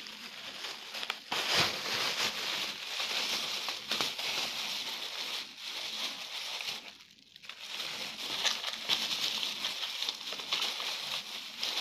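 Thin plastic bag crinkling and rustling as it is handled and pulled open by hand, with a brief pause about seven seconds in.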